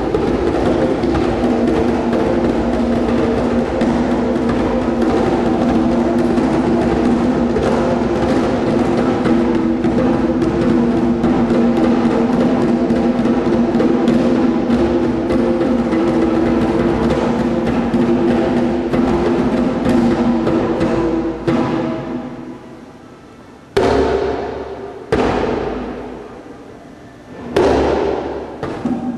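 Djembe hand drumming mixed with computer-generated sound that the drums trigger, a dense rhythmic texture over steady pitched tones. Near the end it thins out, leaving three single loud strikes that ring and fade.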